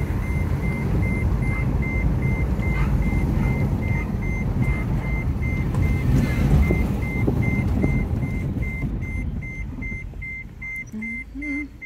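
In-car road and engine noise from a moving car, a steady low rumble that fades near the end as the car slows. Over it an electronic warning chime beeps high and evenly, about three times a second.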